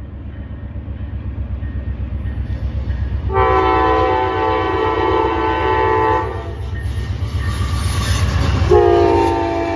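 Amtrak GE Genesis diesel locomotive approaching and passing at speed, its engine rumble building steadily. Its multi-chime horn sounds a long blast about three seconds in, then starts again near the end as the locomotive goes by.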